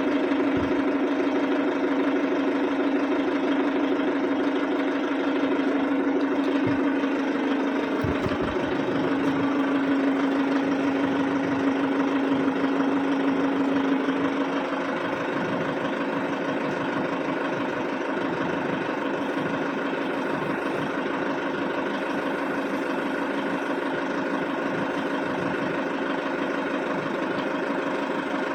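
An engine running steadily with a strong, even hum. It shifts a little in pitch partway through and gets slightly quieter about fourteen seconds in.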